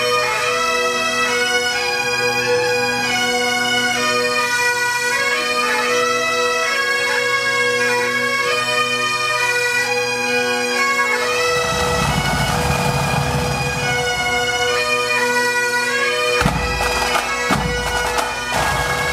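Great Highland bagpipes of a pipe band playing a tune together over their steady drones. A low rumble comes in for a few seconds in the second half, followed by a few sharp knocks.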